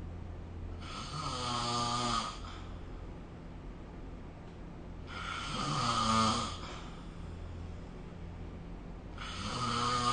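A sleeping person snoring: three buzzing snores about four seconds apart, each about a second and a half long, growing louder and then cutting off abruptly.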